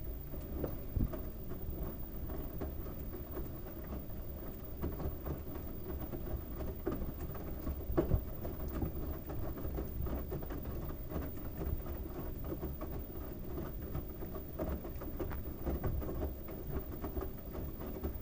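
LG washing machine drum tumbling a load of wet towels: water sloshing and patter with many small irregular knocks, steady throughout, no spin whine.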